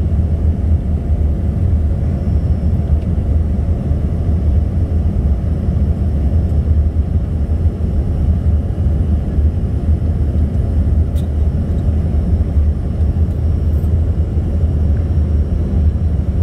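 Steady cabin noise of an Embraer 145 regional jet in flight, heard from inside the cabin: a constant low rumble of its rear-mounted turbofan engines and airflow, unchanging throughout.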